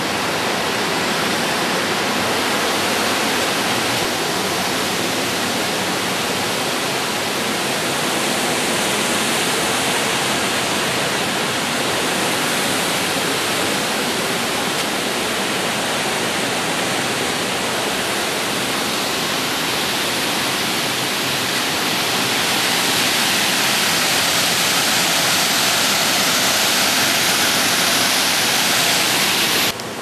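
Waterfall in a rock gorge on Enfield Creek: a loud, steady rush of falling water with no distinct tones. It grows slightly louder in the second half, then drops abruptly just before the end.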